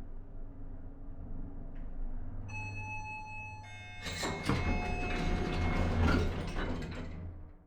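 Old high-rise elevator running with a steady low hum. About two and a half seconds in a clear pitched tone rings out. From about four seconds louder rattling and clanking, typical of the car's doors sliding, joins the hum, and everything cuts off near the end.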